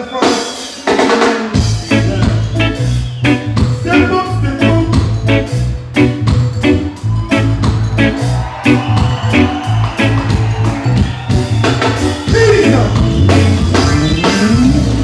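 Live reggae band playing: the drum kit opens, a heavy bass line comes in about a second and a half in, and a steady beat carries on with electric guitar. A singer's voice rises over the band near the end.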